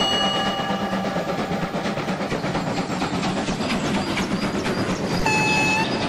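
Train sound effect: the steady rolling rumble and rail clatter of a passing train, with a short horn blast near the end.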